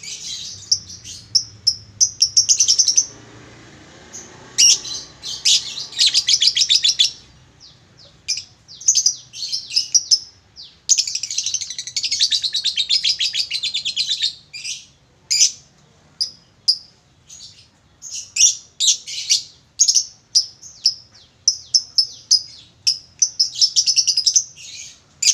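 Male lovebird singing in shrill, rapid chirps, with long fast trills lasting two to three seconds, about five seconds in and again about eleven seconds in.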